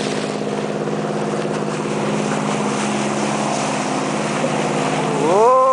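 Motorboat engine running steadily, with wind and water noise. Near the end a short voice-like call rises and falls in pitch.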